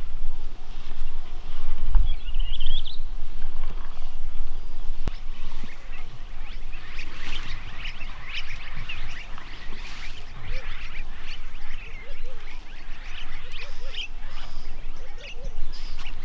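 Small birds chirping and twittering, busiest in the second half, with a short rising trill early on. Underneath runs a steady low rumble, with a single thump about two seconds in.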